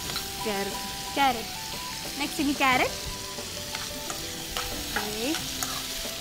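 A spoon stirring and scraping vegetables around a metal pan on the stove, with a sizzle underneath. There are several short squeals as it scrapes the pan, the loudest about a second and a half apart near the start.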